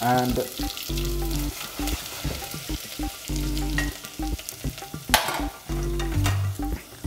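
Chopped ginger and chilli sizzling with crackling yellow mustard seeds in hot oil in a stainless steel pan, stirred with a spoon. A sharp clink comes about five seconds in.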